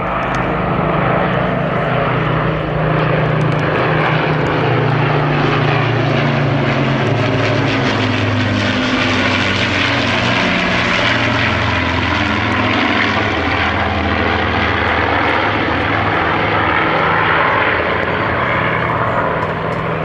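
A formation of propeller warplanes, an Avro Lancaster flanked by a Spitfire and a Hurricane, passing overhead: the deep, steady drone of several piston engines, the Lancaster's four Rolls-Royce Merlins among them. The sound swells as the formation comes in, the engine note drops in pitch as it passes, and it eases off near the end as the aircraft fly away.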